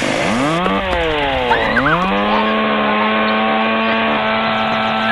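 Gasoline chainsaw engine running at high revs. Its pitch dips and climbs back twice in the first two seconds as the throttle is let off and squeezed again, then holds steady.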